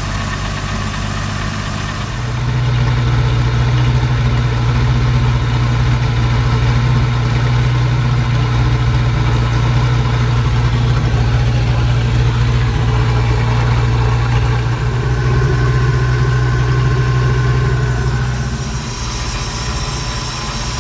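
MerCruiser sterndrive boat engine idling smoothly and steadily, run out of the water on a flush hose. Its steady note grows louder about two seconds in and falls back near the end.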